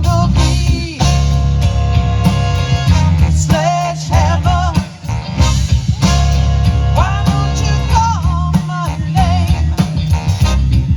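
Horn band playing live: a wavering horn melody over bass and a steady drum beat, with a brief drop about five seconds in.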